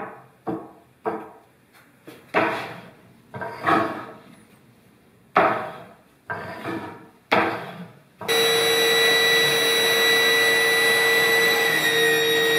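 A series of irregular wooden knocks as wooden blocks are worked into the sled's fence. About eight seconds in, a Ryobi table saw switches on abruptly and runs with a steady whine while its blade is raised up through the plywood sled base.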